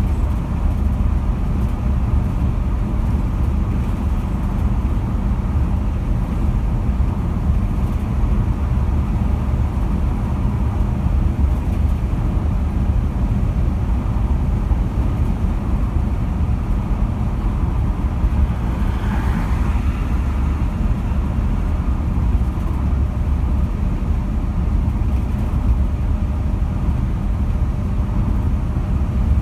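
Steady road noise of a car driving at freeway speed, heard from inside the car: an even low rumble of tyres and engine that does not change.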